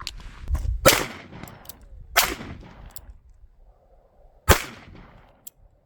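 Three shots from a .45 Colt revolver firing higher-power hand loads. They come about a second in, about a second later, and two seconds after that, each a sharp crack with a short ringing tail.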